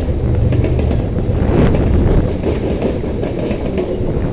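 Covered hopper cars loaded with potash rolling past on a freight train, with a steady heavy rumble and wheels clicking over the rail joints.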